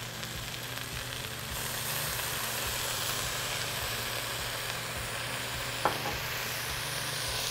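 Onions and mushrooms sizzling in a hot cast iron Dutch oven on the grill, a steady hiss that grows stronger about a second and a half in as Worcestershire sauce goes into the pot. There is one short tap near six seconds in.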